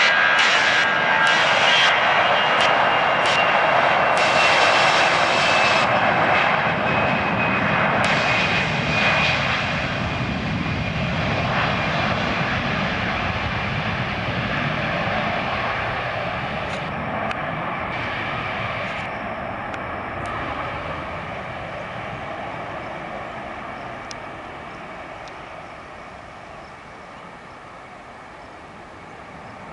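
Airbus A320-214's CFM56 jet engines at takeoff thrust as the airliner climbs away: a loud rumble with a high whine sliding slowly down in pitch, fading steadily as it recedes.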